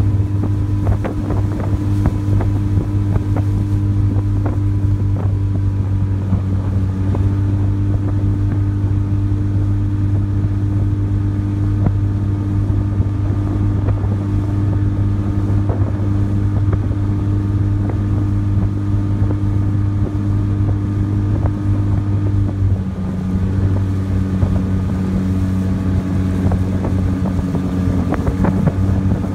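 Small outboard motor pushing an open boat along, running with a steady, even hum; its pitch drops slightly about three-quarters of the way through.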